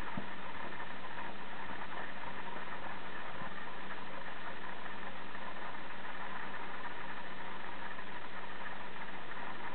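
A steady hum with a constant hiss under it that does not change, and a faint click just after the start.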